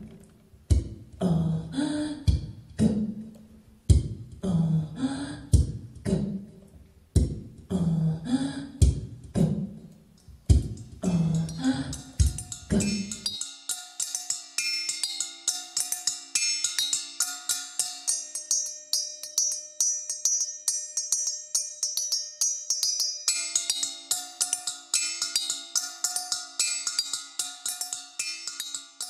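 Experimental percussion music: deep drum strokes in a steady pulse, their pitch bending, stop abruptly about halfway through. Rapid light taps on stainless steel mixing bowls take over, leaving a cluster of sustained metallic ringing tones.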